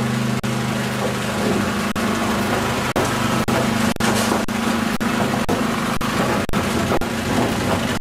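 Crop chopper trolley for pepper plants running: a steady motor hum at two low pitches under a constant noisy rush, broken by a few very short dropouts.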